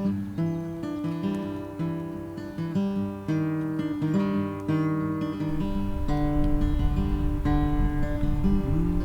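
Background music: acoustic guitar picking a melody. A low rumble comes in a little past halfway.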